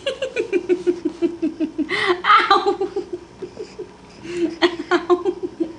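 A baby laughing in quick, repeated bursts of about five or six a second, with a louder burst about two seconds in and a short pause near four seconds before the laughter starts again.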